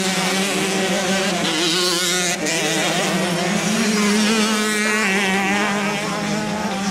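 Motocross bike engines running at once, their pitch rising and falling as the riders work the throttle and shift.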